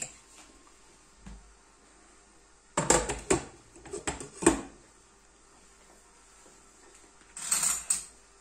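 Kitchen dishes and cutlery clattering: a quick run of sharp knocks and clinks about three to four and a half seconds in, and a short rattle near the end.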